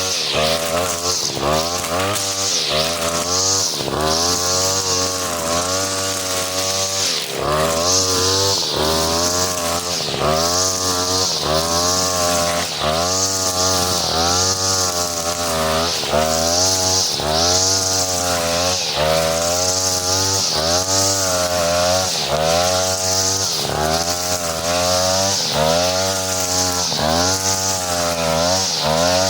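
43cc two-stroke brush cutter with a four-line nylon trimmer head running at high speed, its pitch dipping and rising again roughly every second or so as the line sweeps through grass.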